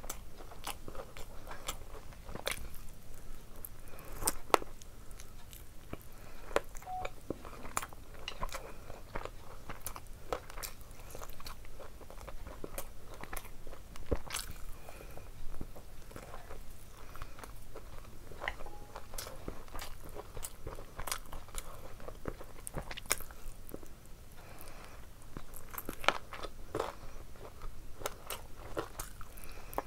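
A person chewing and biting into chicken curry with rice. Wet mouth clicks and smacks come in a dense, irregular stream.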